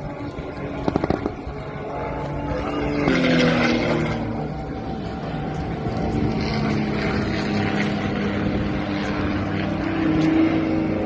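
Aircraft engines flying past: the engine note falls in pitch as it passes about three seconds in, then settles into a steady drone that swells again near the end. A few sharp cracks come about a second in.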